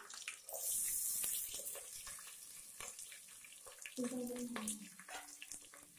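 Sliced onions dropped into hot oil in an aluminium pot, sizzling in a burst for about a second, then a fainter sizzle with light scraping clicks.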